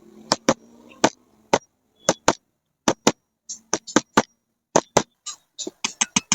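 A quick, irregular series of about twenty sharp knocks and clicks, coming faster near the end, with a faint hum under the first second.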